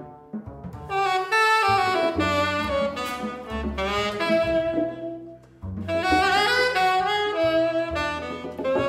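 Live jazz: a tenor saxophone plays a melody over double bass, in two phrases with a short break about halfway.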